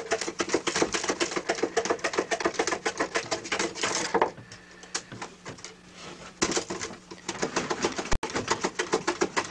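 A small hand tool knocking the inside off the nodes of split bamboo cane strips, so the nodes can be pressed in under heat: quick, dense scraping clicks, with a pause of about two seconds halfway through.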